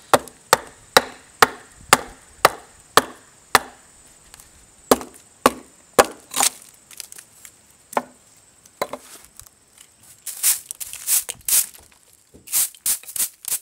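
Bearded axe chopping a birch kuksa blank held on a log bench, sharp blows about two a second, then slower and more uneven. Near the end, a straw hand broom sweeps wood chips off the log in several quick rasping strokes.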